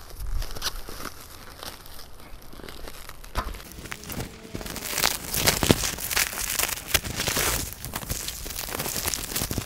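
Plastic and paper wrapping being torn and crumpled off a new tripod as it is unwrapped. A few light handling clicks at first, then rustling and crinkling that gets louder and busier about halfway through.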